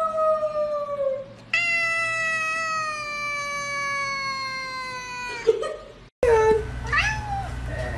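Tabby cat giving long, drawn-out meows: two long calls that slowly fall in pitch, the second lasting almost four seconds. After a short break come a few brief chirping sounds.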